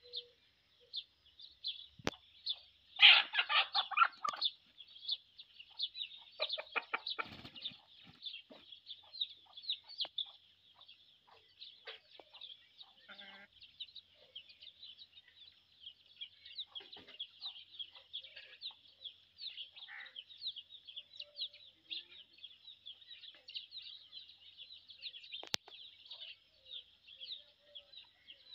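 Chickens clucking, with one loud, longer call about three seconds in. Dense high-pitched chirping of small birds runs underneath throughout.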